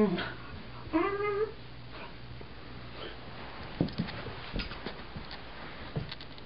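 A miniature Australian Shepherd gives a short, rising, whiny yelp about a second in, with the tail of another at the very start. Scattered light clicks and taps follow during the play.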